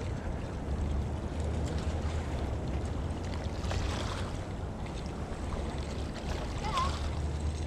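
Steady wind rumble on the microphone, with no distinct events.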